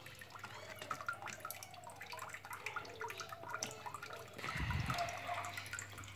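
Faint handling noise from a handheld camera moving over a lizard enclosure: scattered light clicks and rustling over a steady low hum, with a dull bump about four and a half seconds in.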